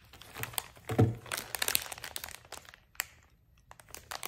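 Plastic food wrapper crinkling in a run of small crackles and clicks, with one louder, brief low sound about a second in.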